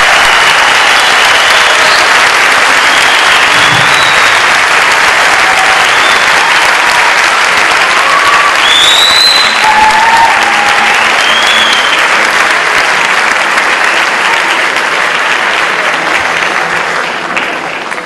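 Audience applauding loudly, with a few voices calling out and a short whistle over the clapping; the applause starts to die away near the end.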